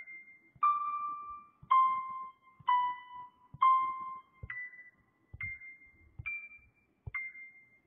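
Background piano music: a slow, gentle melody of single notes struck about once a second, each ringing and fading before the next.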